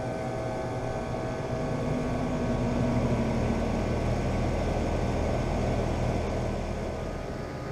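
2008 Comfortmaker central air conditioner condensing units running: a steady hum of scroll compressors and condenser fans with a low electrical drone. It swells slightly about two seconds in.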